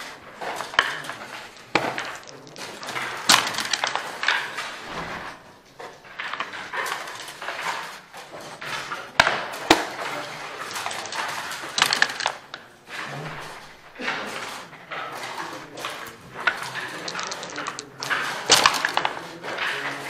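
Backgammon dice and checkers clattering on a wooden board during play: a run of sharp clacks and short rattles every second or two.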